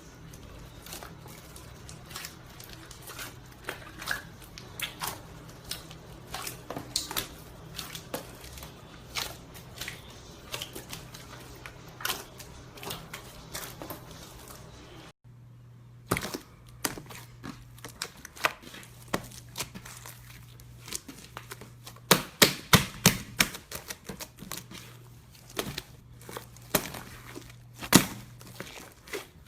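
Slime being squeezed and pressed by hand, giving rapid, irregular clicks and pops over a faint steady hum. The sound breaks off briefly about halfway, then resumes with a cluster of louder pops about two-thirds in.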